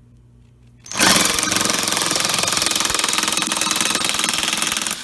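Cordless power driver with an 8 mm socket running hard to back out an air box screw, a rapid even hammering buzz. It starts about a second in and runs for about four seconds.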